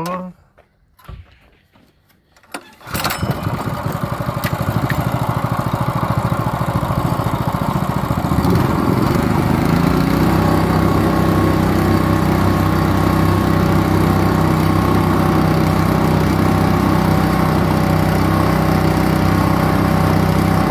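Kohler SH265 6.5 HP single-cylinder small engine, pull-started on the recoil starter. It catches about three seconds in and keeps running, and its note changes and then steadies several seconds later.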